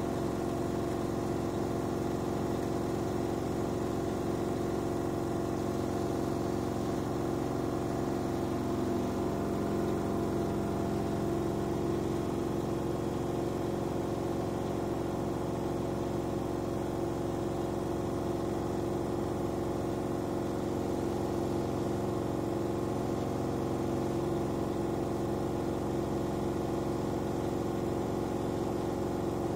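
LG AiDD F4WV309S4E direct-drive front-loading washing machine running a rinse stage with water in the drum, giving a steady mechanical hum that holds one pitch throughout.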